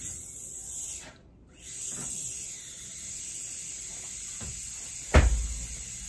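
Steady high hiss of water spraying from a garden hose, which cuts out for about half a second just after a second in and then resumes. A single loud thump about five seconds in.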